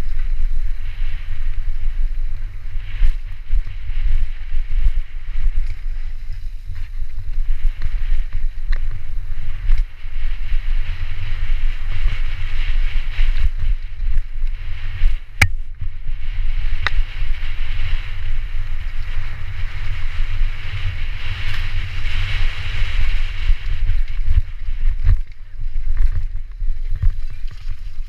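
Wind buffeting an action camera's microphone during a fast mountain-bike descent, with the tyres rolling over gravel, rocks and dry leaves in a hiss that swells and fades. Scattered knocks from the bike over bumps, the sharpest about fifteen seconds in.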